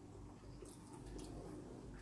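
Near silence: quiet room tone with a faint low hum.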